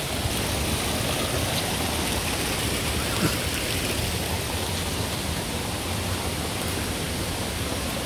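Steady rush of running water: spring water pouring from a pipe and running over rocks, with a light knock about three seconds in.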